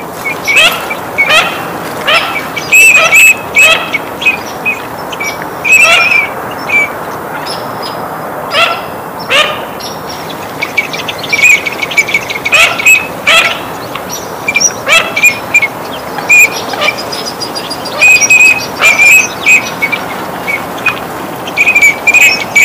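Eurasian teal drakes giving many short, high whistled calls in quick runs, several birds overlapping, over a steady hiss.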